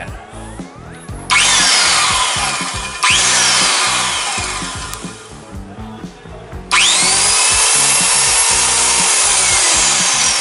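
DeWalt-branded 1650 W corded circular saw motor run with no blade fitted, as a no-load test that it works. It is switched on about a second in, and triggered again near three seconds and left to coast down with a falling whine. Near seven seconds it is switched on again and held at full speed until it is released right at the end.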